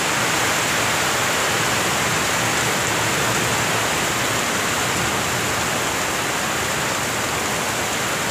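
Heavy rain pouring steadily during a rainstorm: an even, unbroken hiss.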